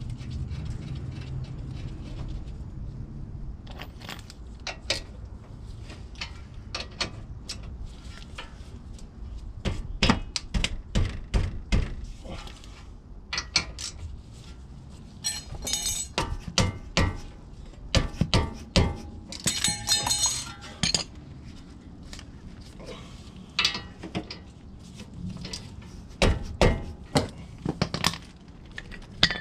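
Metal brake parts and hand tools clinking, tapping and knocking as a new brake rotor and its hardware are fitted to the front hub, with two short spells of rapid rattling clicks about halfway through.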